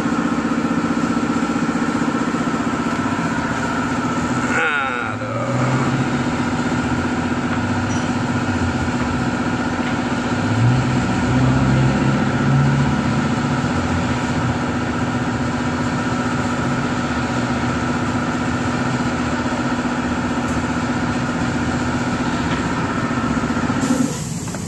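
An engine running steadily at one even pitch. There is a brief break about five seconds in, and it stops about a second before the end.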